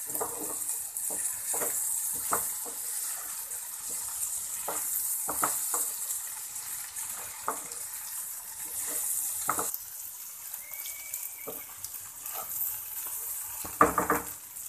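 Chopped okra sizzling in a frying pan while a spatula stirs it, scraping and knocking against the pan. The sizzle drops off about two-thirds of the way through, and a loud clatter of knocks comes near the end.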